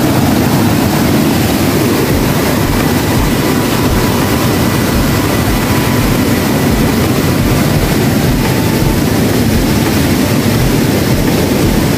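Stream water rushing over a small rocky cascade: a loud, steady rush with no breaks.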